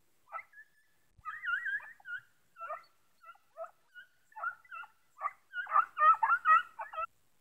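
Hunting hounds baying on a hare's trail: a run of short, wavering yelping calls that come thicker and louder near the end.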